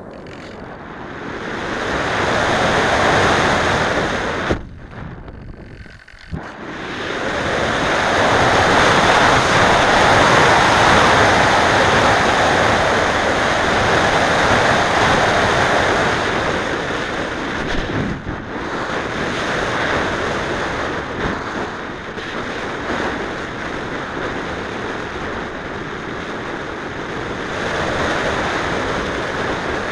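Airflow rushing over the onboard camera's microphone on an unpowered slope-soaring RC glider in flight: a loud, steady rush that rises and falls with airspeed. It dips away briefly about five seconds in.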